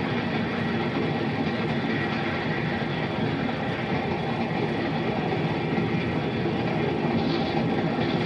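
Steady running noise of a train, a continuous rumble and rattle with no breaks, on the narrow, hissy soundtrack of an old 16mm film print.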